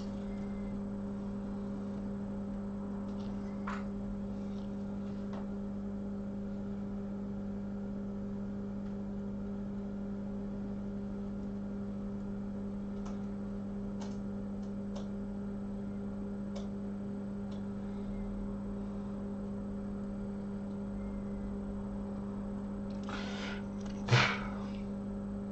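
A steady electrical hum from bench repair equipment, with faint scattered ticks of a metal tool scraping soft epoxy underfill off a phone flex cable. Near the end comes a louder scrape with one sharp knock.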